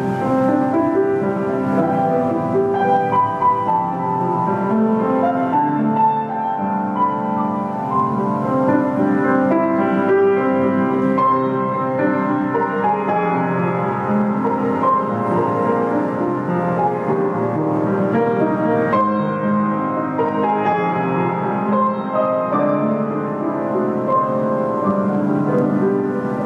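Kawai GM-2 baby grand piano being played: a melody over sustained chords.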